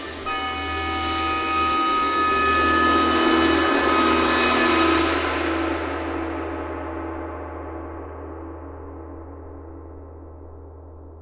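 Large tam-tam played with a mallet, swelling to a shimmering peak about five seconds in and then ringing slowly away, its highest overtones dying first. An oboe holds a high note over it until the swell peaks.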